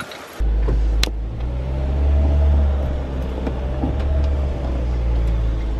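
Car engine running, heard from inside the cabin as a steady low rumble that starts abruptly about half a second in. A single sharp click comes about a second in.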